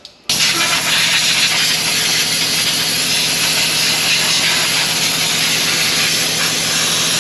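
Compressed-air blow gun on a red air hose giving a loud, steady hiss as it blows off the underside of the rear axle and suspension during cleaning. It starts suddenly just after the start and holds without a break.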